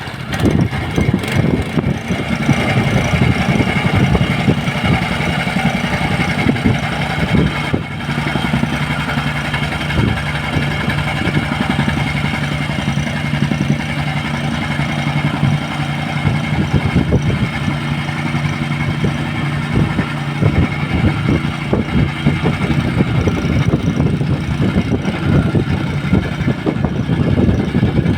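An engine running steadily at an even speed, with a fast, unbroken firing pulse.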